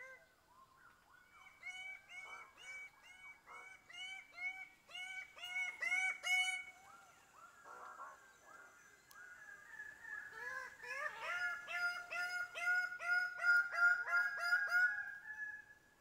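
Male greater birds-of-paradise calling at a lek, several birds overlapping: loud pitched calls repeated in quick series of about two to three a second. There are two bouts, the second loudest near the end. Males call like this to attract females before and during display.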